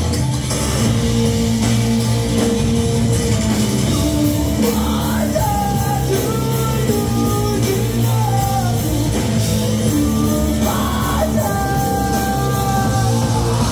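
Rock band playing live, with electric guitars, bass and drums under a singer holding long notes that bend in pitch.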